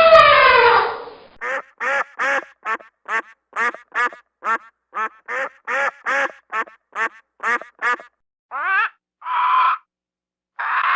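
A duck quacking in a fast, excited run of short quacks, about three a second, followed near the end by a few longer, drawn-out calls. A long pitched animal call falls away in the first second.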